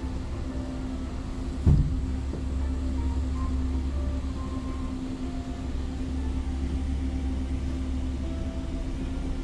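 Steady low rumble and hum inside an aerial ropeway cabin as it travels along its cable, with a single thump a little under two seconds in.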